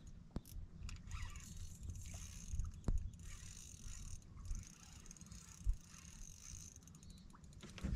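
Fishing reel being cranked while a hooked fish is played in on a bent rod: a faint mechanical whirring, with a couple of sharp clicks.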